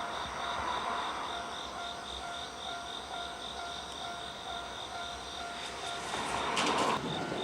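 Japanese level-crossing alarm ringing with its steady, evenly repeating electronic ding over the rumble of an approaching train. About six seconds in, the train noise swells sharply as a six-car JR West 223 series electric train reaches the crossing.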